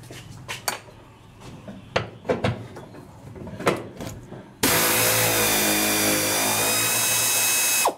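A few light clicks and knocks of tools on metal, then a cordless impact wrench running hard for about three seconds, loosening a front-clip bolt, and stopping abruptly.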